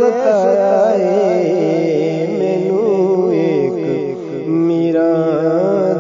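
A man singing a Sufi devotional song (kalam) in long, wavering, ornamented melodic lines over a steady held drone accompaniment.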